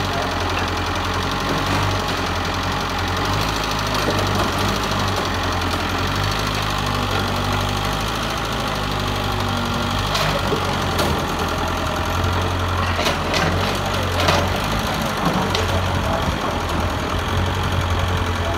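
Mitsubishi excavator's diesel engine running steadily while working, its low note shifting now and then with load. Several sharp knocks come in the second half.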